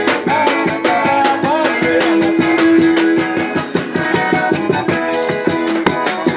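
Upbeat music with a fast steady beat of percussion strokes and sustained melodic notes.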